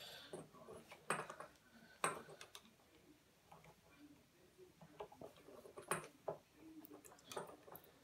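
Faint metallic clicks and knocks of a 10 mm spanner pushed hard on a PL259 connector's top-hat compression ring, forcing it down between the RG213 coax braid and the dielectric, a stiff fit that is not easy. The sharpest knocks come about a second in, at two seconds and about six seconds in.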